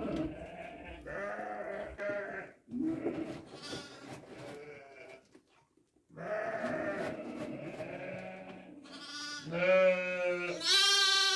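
Young lambs bleating, one call after another with a short break about five seconds in; the loudest, highest-pitched bleats come near the end.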